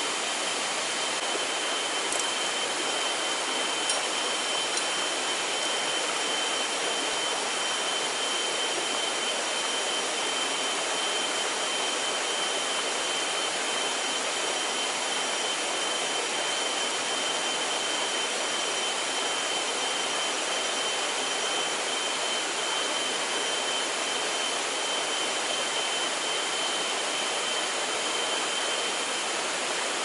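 Small waterfall and stream rushing as a steady, even hiss, with a thin, steady high whine above it that stops near the end.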